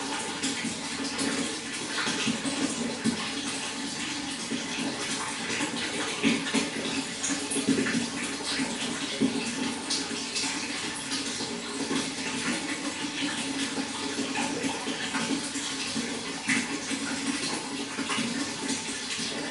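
Water running and splashing steadily into a fish pond, a continuous rush with many small splashes.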